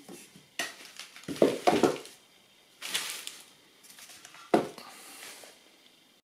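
Handling noise from a homemade timber-block jack stand with a steel top plate: a few dull knocks of wood and metal about a second and a half in, a scraping rustle around three seconds, and a sharp knock near the end.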